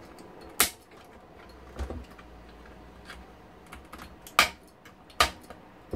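Side cutters snipping through the transformer's lead wires on the power supply board, heard as a few sharp, irregularly spaced clicks with fainter clicks between.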